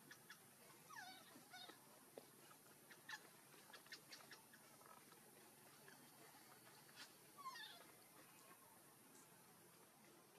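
Faint high squeaks from a newborn macaque: a few short calls falling in pitch, with scattered soft clicks between them.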